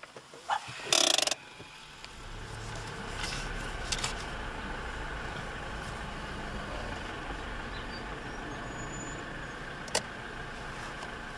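Steady road and engine noise heard inside a car driving slowly on a rain-wet road, with a brief loud burst of noise about a second in and a single sharp click near the end.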